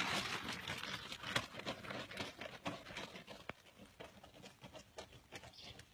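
Faint, irregular pattering footsteps on a dirt road.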